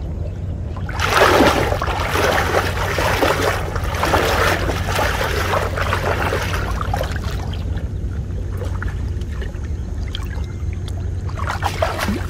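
Muddy floodwater splashing and churning for several seconds as a cone-shaped fish-trap net is worked through it, dying down to a few smaller splashes near the end, over a steady low rumble.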